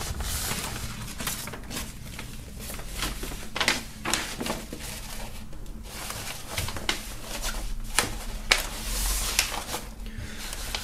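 Large printed paper poster rustling and crinkling as it is folded up by hand, in irregular bursts of rubbing and crackling paper.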